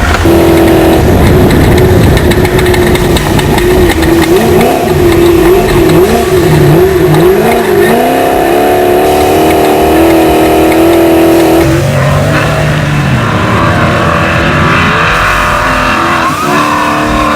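Off-road race truck's engine running hard at high revs, the pitch wavering up and down with the throttle, then settling lower about twelve seconds in.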